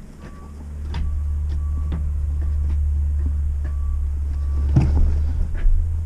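A manual gear shifter is worked through the gears of a Toyota five-speed transmission, with a few light clunks as it moves, while the transmission's shift feel is checked. Under it runs a steady low vehicle engine rumble that grows about a second in, with faint reversing beeps repeating about once a second.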